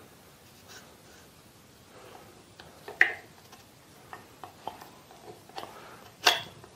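Light metal clicks and clinks as the spindle shaft is slid out of a mini lathe headstock and the gears on it shift loose inside the housing. Two sharper clinks, about three seconds in and near the end.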